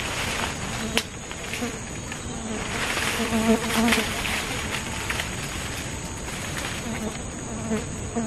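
Insects buzzing in the undergrowth: a low flying-insect buzz that comes and goes close by, strongest a few seconds in, over a steady high-pitched insect drone. A single sharp click sounds about a second in.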